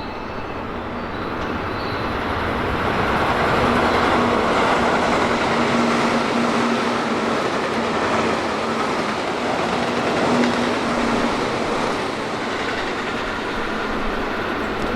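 Electric commuter train running on the rails: its noise builds over the first few seconds, then holds steady with rail clatter and an on-and-off low hum.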